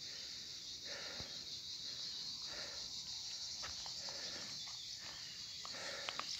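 Steady high-pitched chirring of insects, with a few faint clicks near the end.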